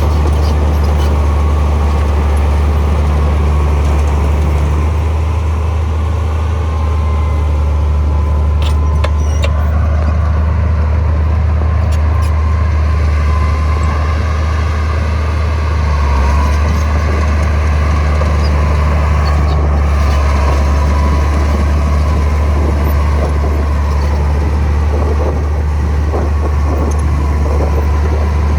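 Heavy earthmoving machine's diesel engine running steadily with a deep drone, with a few faint clicks and clanks about a third of the way in.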